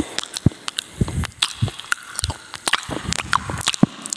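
Chocolate Labrador retriever chewing raw meat: irregular sharp clicks and short wet smacks of its jaws and tongue.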